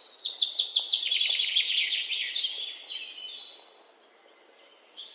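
Songbird singing: a quick run of high, repeated chirps that thins out and fades away about four seconds in.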